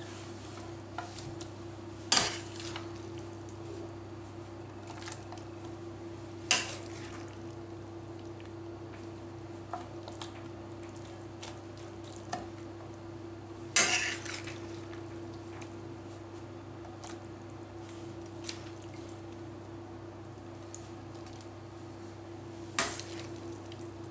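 Metal spoon knocking and scraping against a nonstick frying pan while stewed sauerkraut is scooped out, with four sharp clanks several seconds apart and lighter taps between, over a steady low hum.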